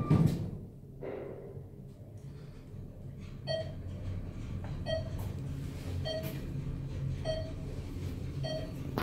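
A short electronic beep repeating about every second and a quarter, five times, starting a few seconds in, over a steady low hum; a bump at the very start.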